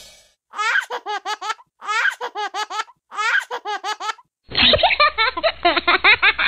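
Human laughter: three short, alike bursts of rapid "ha-ha-ha" with dead silence between them, then a further stretch of laughter that sounds duller and muffled over the last two seconds.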